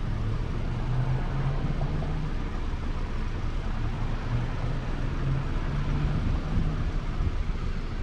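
The 2012 Honda Civic Natural Gas's 1.8-litre four-cylinder engine idling steadily, running with a misfire on cylinder 3 (code P0303).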